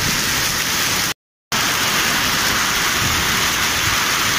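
Hail mixed with rain pelting paved ground, a dense steady hiss. It cuts out for a split second a little over a second in, then carries on.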